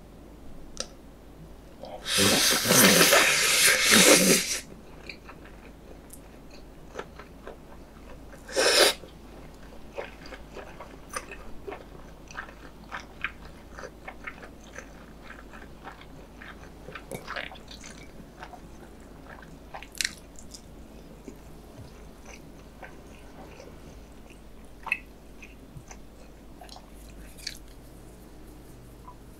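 Close-miked slurping of stir-fried instant noodles: one long, loud slurp about two seconds in and a short one near nine seconds, followed by quiet wet chewing clicks.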